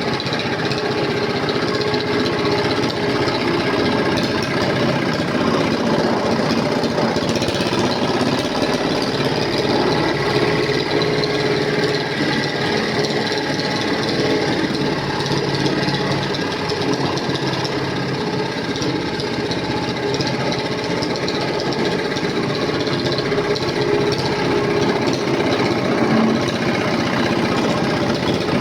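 Small roller floor compactor running steadily, with a continuous mechanical rattle from its vibrating drive.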